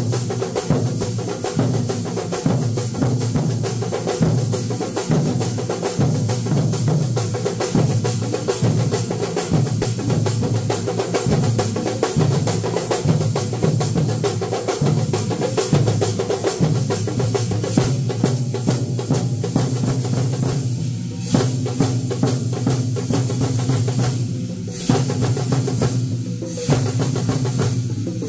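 Massed chenda drums played fast and densely, the climactic kalasham section of two drum troupes playing together. The drumming thins briefly a few times near the end before pressing on.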